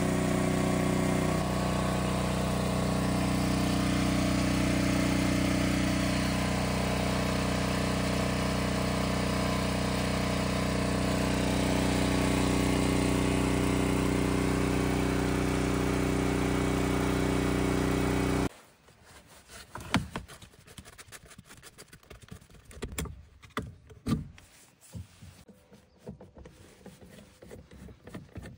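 Portable generator engine running steadily. The sound cuts off suddenly about two-thirds of the way through and is followed by quiet, scattered clicks and taps as a screwdriver works at a power outlet box.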